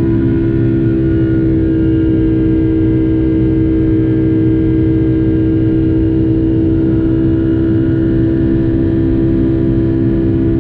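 Rolls-Royce RB211-535 turbofans of a Boeing 757-200 heard from inside the passenger cabin: a loud, steady drone with a strong buzzing hum over a low rumble.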